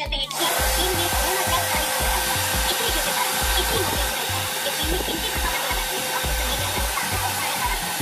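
A 2000-watt Chaoba 2800 hair dryer switched on about a third of a second in and running steadily, blowing air with a faint steady whine from its motor.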